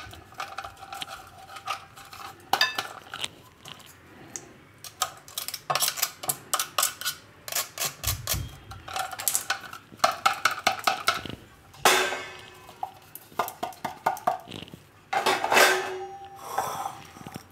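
Plastic garlic grater knocked repeatedly against the rim of a glass bowl to shake out the grated garlic: a run of sharp taps with the glass ringing after them. There are longer scrapes about two-thirds of the way in and again near the end.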